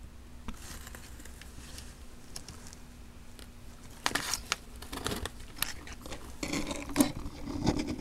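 Thin clear plastic food container being handled and flexed, crinkling and clicking, with scattered faint clicks at first and louder, denser crinkling from about four seconds in.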